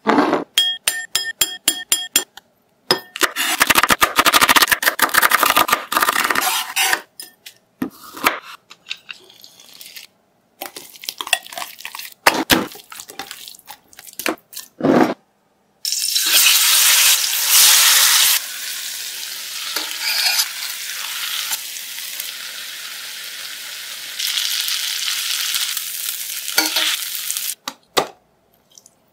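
A run of kitchen sounds: a quick patter of small ticks, then a wet marinade being stirred and squished with the chicken, with scattered clinks. From about a third of the way in, marinated chicken breasts sizzle steadily in a hot pan for about eleven seconds, followed by a few clicks near the end as tongs set the chicken on a plate.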